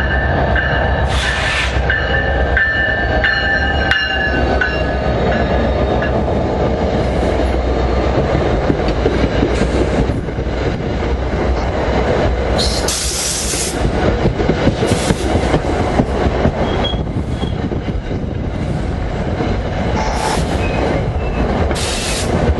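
Commuter train passing close by: a continuous loud rumble of wheels on rail, with a high wheel squeal in the first few seconds and several short high hisses later on.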